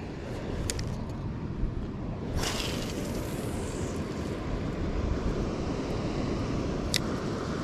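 Wind rushing over the microphone, a steady low rumble with some hiss that grows a little about two and a half seconds in. A single sharp click comes near the end.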